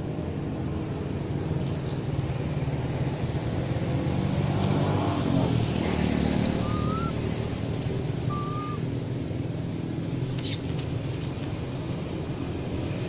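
A steady low motor-like hum, with two short high chirps a little after halfway and a sharp click near the end.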